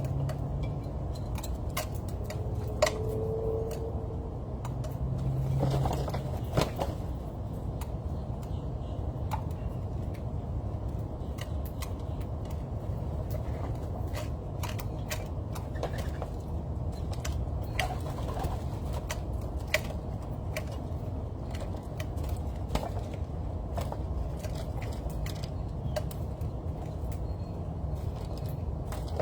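Outdoor background of a steady low rumble like distant traffic, with scattered sharp clicks and taps throughout. A dove coos once about three seconds in.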